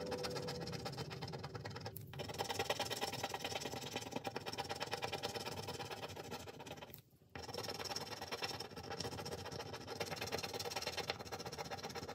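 Fingernail scratching and rubbing at the coating on a paper scratch-off card: rapid scratching strokes, with a short pause about two seconds in and another about seven seconds in.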